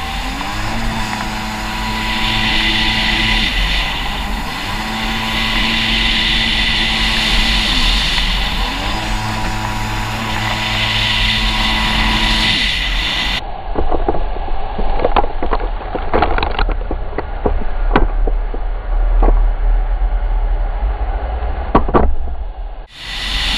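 Yamaha WaveBlaster 1 personal watercraft's two-stroke engine running hard with water rushing past. The revs drop and climb again about every four seconds as the throttle is eased and reapplied through the buoy turns. About halfway through, the engine gives way to muffled knocks and splashes of spray against the camera, with a brief dropout near the end.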